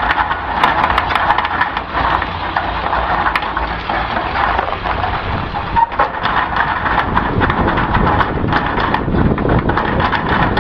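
1999 Ford 7.3 L Power Stroke turbodiesel V8 running, its turbocharger giving a steady hissing whistle over a low engine rumble.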